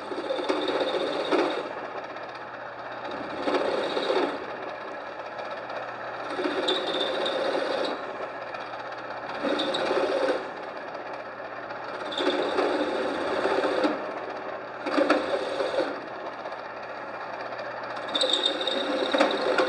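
Delta Rockwell 15-120 ram-type radial drill press running steadily while a chamfering cutter is fed into wheel-spacer holes one after another: seven cuts of one to two seconds each, a few seconds apart, each louder and rougher than the motor hum between them.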